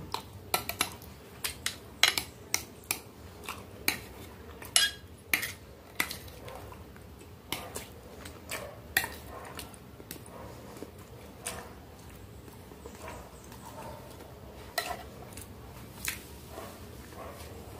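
Metal spoon clinking and scraping against a glass baking dish full of ravioli in white sauce: quick, irregular clicks, most of them in the first half, sparser later. Soft chewing sounds come between the clicks.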